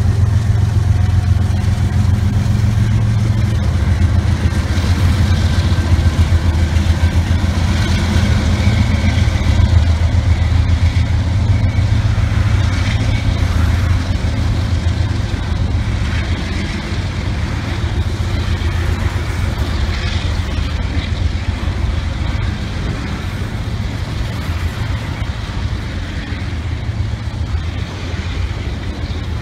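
Canadian National diesel freight locomotives passing slowly at close range, their engines making a steady low drone. The drone eases off over the second half as the locomotives move away, leaving the rolling noise of double-stack container cars going by.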